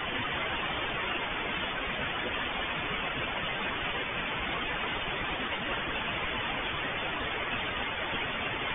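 Steady, even hiss of static with no tone and no change in level.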